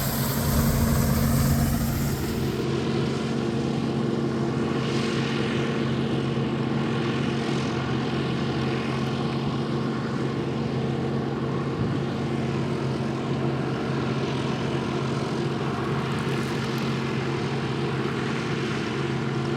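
1982 John Deere 4420 combine's six-cylinder diesel engine running steadily under harvest load, a constant drone with threshing noise over it.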